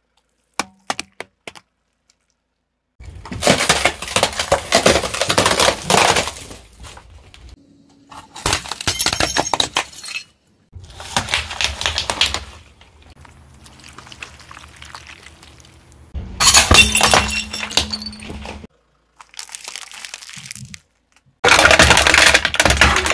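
A car tyre rolling over and crushing objects in a string of short separate takes: cracking and crunching, water splashing as balloons burst, and drink cans crumpling near the end.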